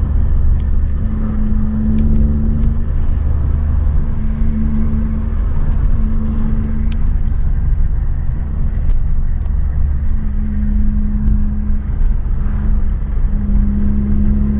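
Car engine and tyre rumble heard from inside the cabin of a moving car: a steady low drone, with the engine hum swelling and easing a few times as the car is driven.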